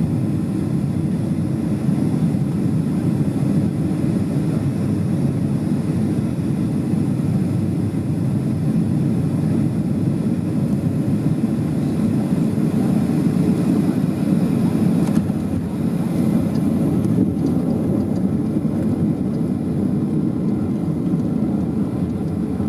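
Steady rumble of a Boeing 737-600's CFM56 engines and rushing air heard inside the passenger cabin during final approach and landing. By the end the jet is rolling along the runway with its spoilers raised.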